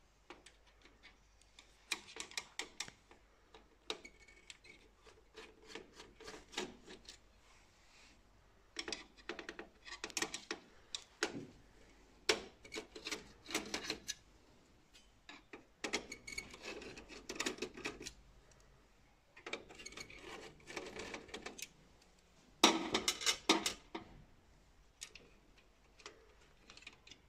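Screwdriver and hands working on the sheet-metal scanner assembly of an Océ PlotWave 300: irregular clicks, scrapes and short bursts of clatter from screws and metal parts as the scanner's sensor bar is unfastened.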